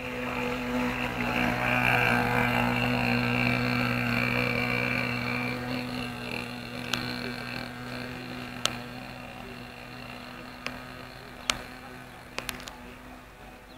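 Nitro glow-plug engine of a radio-controlled model boat running steadily at a high, even pitch, loudest a few seconds in and then fading. Several sharp clicks sound in the second half.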